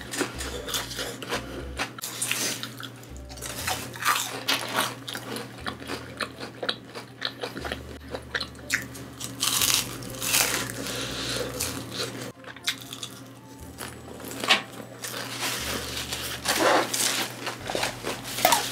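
Close-up crunching bites and chewing of battered deep-fried vegetables (Korean twigim), with many short crisp crackles.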